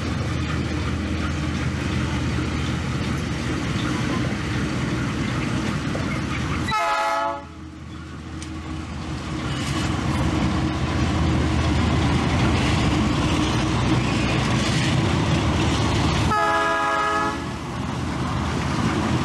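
Diesel freight locomotive running as it passes at slow speed, with a steady low engine rumble. Its horn sounds twice: a short blast about seven seconds in and a longer, second-long blast about three-quarters of the way through.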